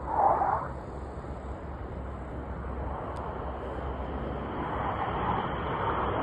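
Distant formation of Saudi Hawks BAE Hawk jets: a steady rushing jet roar that grows gradually louder as they approach. A short louder burst sounds right at the start.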